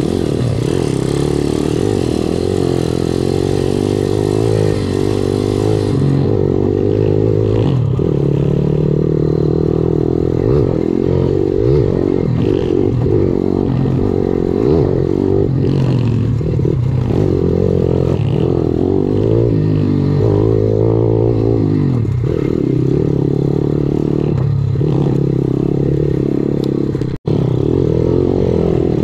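Viar 150 SF R pitbike's single-cylinder four-stroke engine heard on board, its revs rising and falling again and again with the throttle over a rough dirt trail, with rattling of the bike over the bumps. The sound cuts out for a split second near the end.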